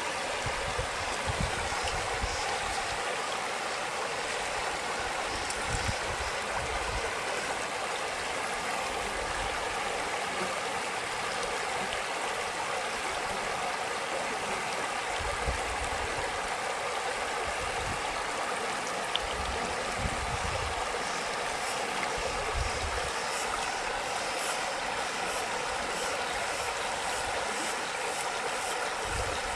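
Stream water rushing steadily, an even hiss of flowing water with low rumbles that come and go.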